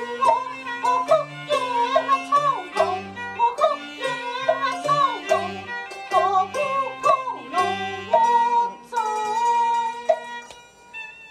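Cantonese opera music: a bowed-string melody with a wavering, sliding line over plucked notes and a bass line, with light percussion clicks. The melody thins out near the end.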